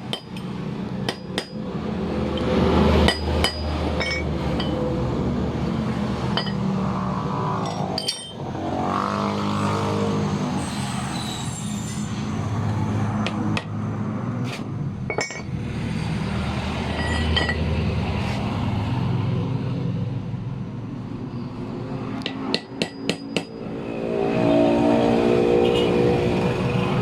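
Hammer striking metal parts of a car AC compressor pulley, in short clusters of sharp taps: several near the start, a couple about three seconds in, single blows later, and a quick run of taps about 22 seconds in. A vehicle engine runs steadily underneath.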